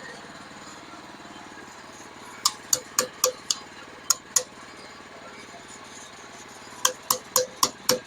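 Hammer blows ringing on metal in two quick runs, about seven strikes and then about six. A small engine idles steadily underneath.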